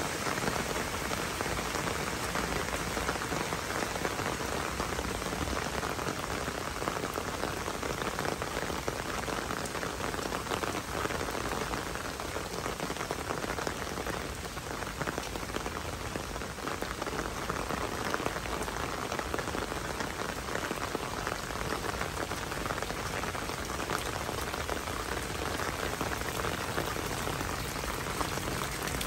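Steady rain falling, a dense patter of drops on wet paving and surroundings, easing a little about halfway through.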